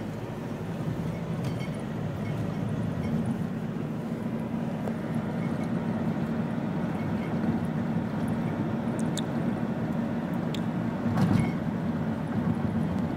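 Car driving at speed heard from inside the cabin: a steady hum of tyres on the road and engine. A short thump about eleven seconds in.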